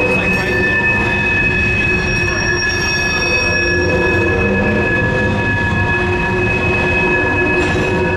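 BNSF covered hopper cars of a grain train rolling across a railroad bridge: a steady rumble of steel wheels on rail with several high, steady wheel-squeal tones held over it.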